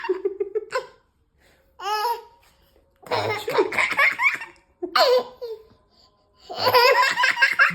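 A baby laughing hard, in about five separate fits of high-pitched belly laughter with short quiet gaps between them.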